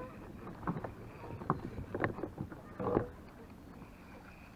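Irregular knocks and splashy clatters around a kayak while a hooked bass is fought, over a low steady wind rumble on the microphone. The loudest clatter comes about three seconds in.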